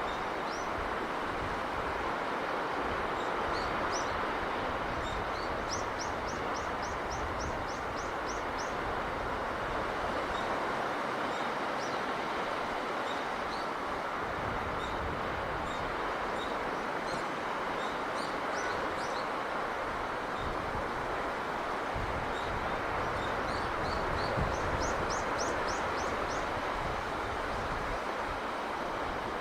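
Steady rushing of a sea breeze with birds chirping over it. Twice, once about six seconds in and again near the end, a bird gives a fast run of about eight short, high notes.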